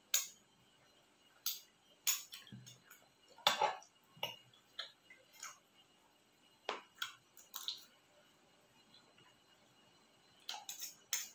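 Close-up eating sounds: crunching and mouth clicks while chewing fried shrimp, coming as short, sharp clicks about a second apart, with a busier run of them near the end.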